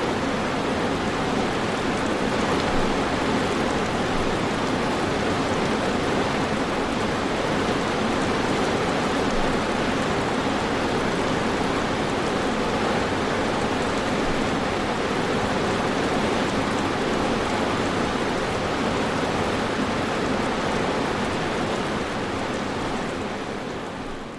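Steady rainfall, a dense even hiss with no distinct drops or thunder, fading out near the end.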